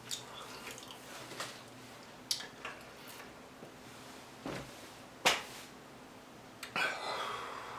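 Close-miked mouth sounds of someone chewing a sushi roll: scattered wet clicks and lip smacks, several seconds apart, with a short breathy rush near the end.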